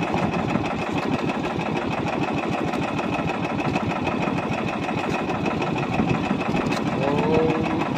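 Engine of a small motorized outrigger fishing boat running steadily, heard from on board.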